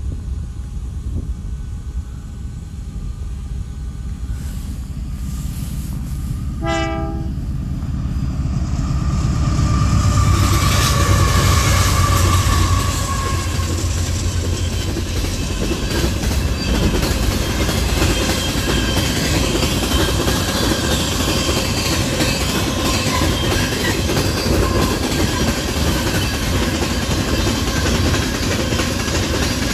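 Freight train passing: a short horn blast about seven seconds in, then the locomotive rumble building to its loudest around ten to thirteen seconds, followed by a steady rumble and clickety-clack of boxcars and tank cars rolling by on jointed track.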